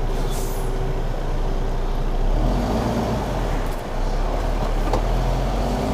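Steady diesel engine hum of an idling lorry, heard from inside the cab, with a forklift working close by; the mechanical noise gets a little fuller about two seconds in.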